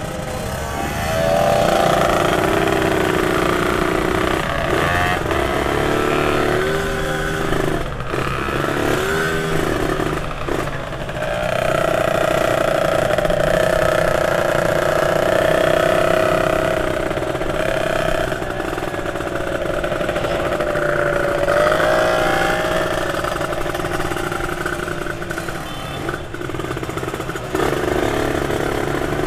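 Motorcycle engines running in slow town traffic, heard from on the rider's own bike, the engine pitch rising and falling as the riders throttle on and off.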